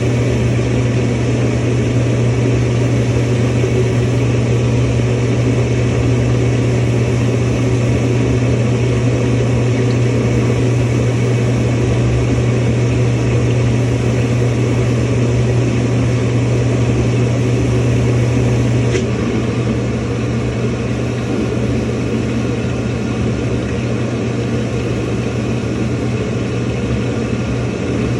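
Samsung washing machine filling with water: a steady low hum with an even rush of water flowing in. About two-thirds of the way through there is a faint click and the sound becomes slightly quieter.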